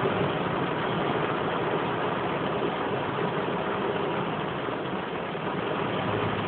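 Heavy rain falling during a thunderstorm, a steady even hiss.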